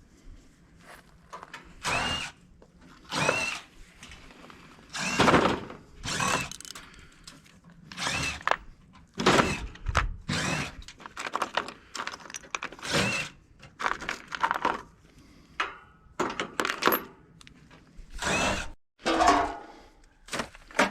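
Power drill driving in short bursts, about a dozen of them, several starting with a brief rising whine, as screws are backed out of an air conditioner being torn down.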